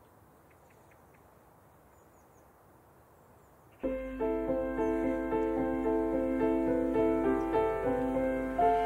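Near silence with a few faint high chirps, then piano music starts suddenly about four seconds in: a slow piece of sustained notes, each struck and fading.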